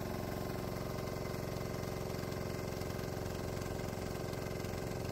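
Small 196cc, 3 hp air-cooled single-cylinder diesel engine running steadily at a constant speed, driving the generator of a diesel-electric golf cart as it moves off.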